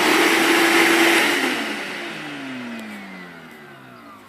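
Ridgid 14-gallon shop vacuum running at full speed, then switched off about a second and a half in, its motor whine falling in pitch as it spins down. This is the test run after a brush wire that had come off the motor was reattached.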